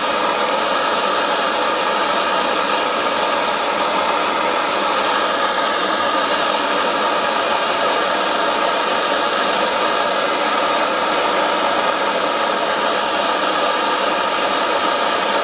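Hand-held gas torch burning with a steady hiss as its flame heats brass parts to brazing temperature.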